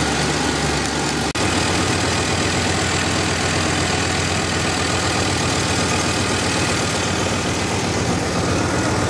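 Small-block V8 idling steadily at operating temperature, briefly cutting out about a second in. The warm idle oil pressure is around 20 psi, which the owner judges too low and blames on a worn oil pump.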